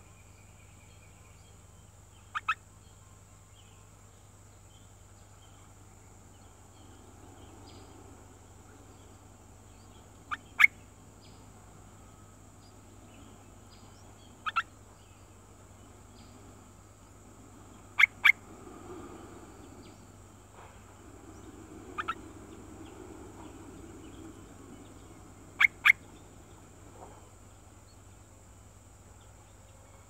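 Short, loud double chirps from a small songbird at its nest, six pairs spaced about four seconds apart, over a faint steady background.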